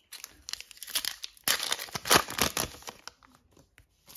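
Foil trading card pack wrapper being torn open and crinkled by hand, a dense crackling that stops about three seconds in.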